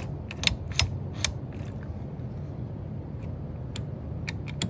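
Metallic clicks and clacks from a five-speed dirt bike/ATV transmission worked by hand in its open case: the shift drum and forks are turned to slide the gears' dog teeth into third gear. The clicks come several in quick succession in the first second and a half, then a few scattered ones near the end, over a steady low hum.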